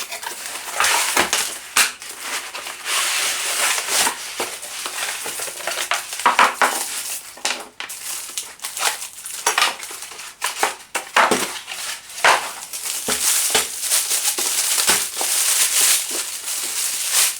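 Packaging being unpacked by hand: plastic wrap and packing material crinkling and rustling, with frequent clicks and knocks of cardboard and parts being handled.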